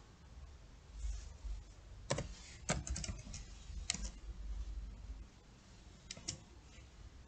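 Separate keystrokes on a computer keyboard: a run of about seven quick key presses from about two to four seconds in, then two more about six seconds in.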